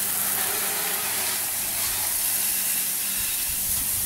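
Steady hiss of water jets spraying from a PVC undercarriage-washer wand fed by a garden hose, striking the underside of a vehicle and the wet pavement.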